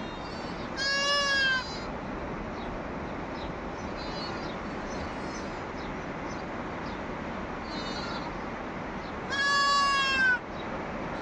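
Goat bleating loudly twice, each call about a second long and several seconds apart, with fainter, higher bleats in between.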